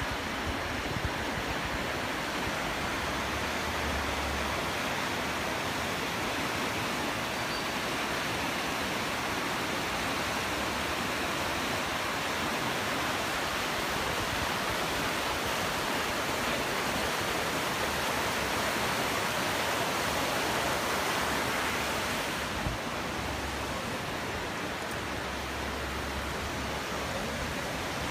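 Glacier-fed mountain river, swollen with meltwater, rushing over rocks and rapids in a steady, even rush of water.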